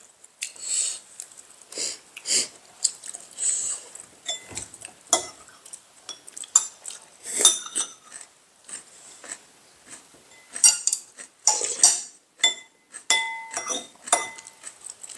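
Chopsticks and utensils clicking and scraping against ceramic bowls and plates while people eat, in many short, irregular clinks. Near the end one clink leaves a brief ringing tone.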